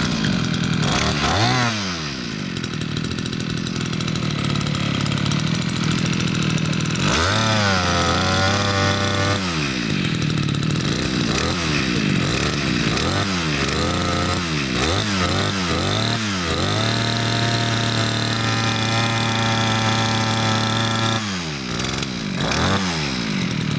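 Echo 260 brush cutter's small two-stroke engine fitted with a homemade exhaust, revved over and over. It blips quickly several times and holds at high speed for a few seconds before dropping back to idle and revving again near the end.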